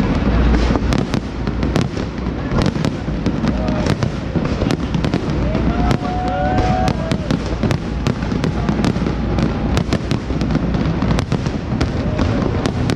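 Fireworks display going off in rapid succession: many sharp bangs and crackles over a continuous low rumble, with a few short rising and falling tones now and then.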